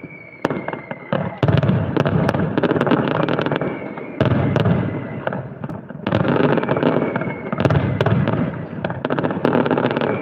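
Fireworks display: rapid volleys of bangs and crackling from aerial shells bursting, easing off briefly about halfway through and then building again. A thin whistle, slowly falling in pitch, recurs through the volleys.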